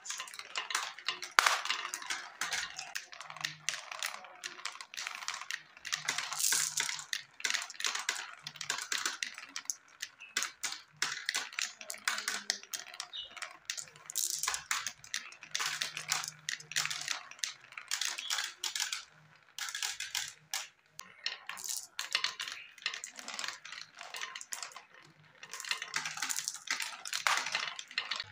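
Many small marbles rolling and clattering down a plastic marble-run track, a continuous patter of clicks as they spin through a funnel and bounce along curved and wavy channel pieces. The clicking thins briefly about two-thirds of the way in, then picks up again.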